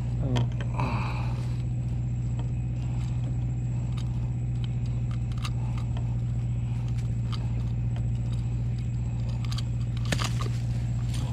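A steady low engine drone hums without change throughout. Small clicks and scrapes from handling a landed fish and working the hook free with pliers come over it, with a sharper click about ten seconds in.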